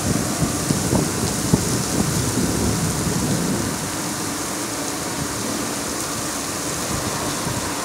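Heavy rain falling steadily, with a low thunder rumble in the first three seconds or so that then dies away.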